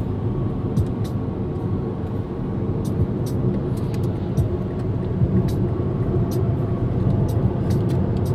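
Car cabin noise at highway speed: a steady low rumble of tyres on the road and the engine, with scattered light high clicks and crackles.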